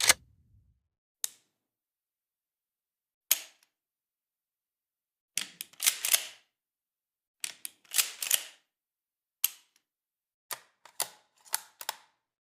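A series of sharp clicks and clacks, some single and some in quick clusters, with dead silence between them.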